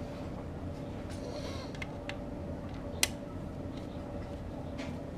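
Scattered light metal clicks and taps of a hand tool working the motorcycle engine's bolts, with one sharper clink about three seconds in, over a steady low background hum.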